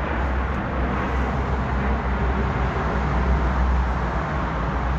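Steady outdoor background noise: a continuous low rumble with an even hiss above it and no separate events.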